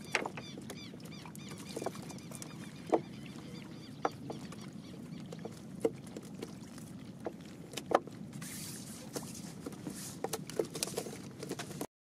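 Scattered knocks and taps in a small boat, irregular and a second or two apart, as fish and the cast net are handled; a short rustling hiss about eight seconds in.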